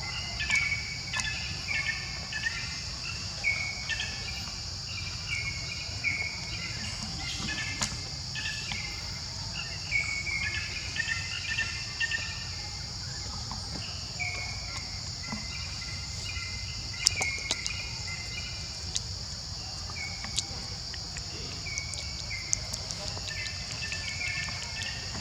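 Steady high insect drone, with clusters of short, high chirping calls repeating through it and a few scattered clicks.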